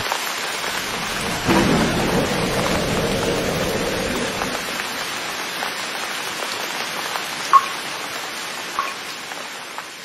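Steady rain falling, with a low rumble of thunder swelling up about a second and a half in. Two short sharp ticks come near the end as the rain gradually fades.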